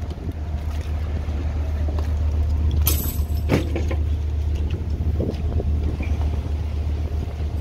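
Tuna fishing vessel's engine and deck machinery running with a steady low drone while a brailer of fish is hoisted aboard, with a sharp clank about three seconds in.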